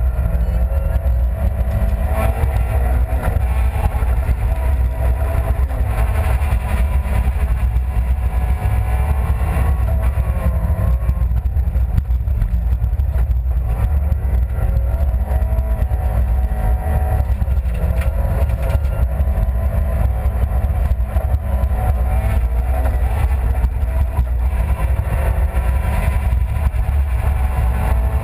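Honda Civic Type-R rally car's four-cylinder engine heard from inside the cabin at full effort, its pitch rising and falling again and again, over a constant low rumble.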